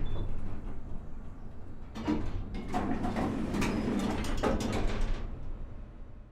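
Elevator running with a steady low rumble. About two seconds in, its mechanism starts a few seconds of clicking and clattering, and then the sound fades out.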